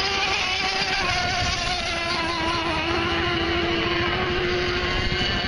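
1/8-scale radio-controlled racing boat engine running at high revs, a steady whine whose pitch sags slightly around the middle and then comes back up.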